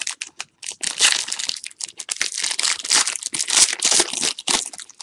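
Foil wrapper of a trading-card pack crinkling and tearing as hands rip it open: a dense run of sharp crackles.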